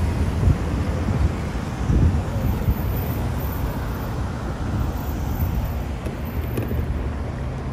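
Road traffic driving over the railroad crossing, a steady rumble of car engines and tyres, with wind buffeting the microphone.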